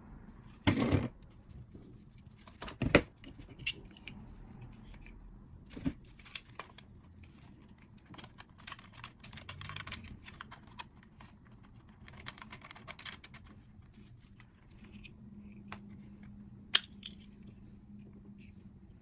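Packaging being handled while a product is unboxed: two loud rustling scrapes in the first few seconds, then scattered clicks and light crinkling of plastic and cardboard, with a sharp click near the end.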